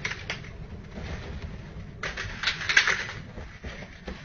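A dog scrambling across the floor and onto a bed, its paws thudding and scrabbling and the bedding rustling, with a louder flurry of rustling in the middle. Heard through a home security camera's microphone over a steady low hum.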